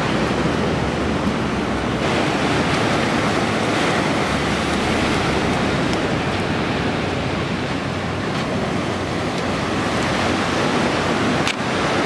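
Ocean surf washing onto a sandy beach in a steady rush, with wind rumbling on the microphone.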